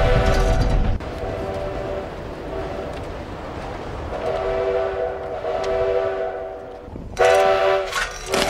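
Steam locomotive's chime whistle, several notes sounding together, blown in a series of blasts: one that ends about a second in, two short ones, a long one of about two and a half seconds from around four seconds in, then two louder short blasts near the end.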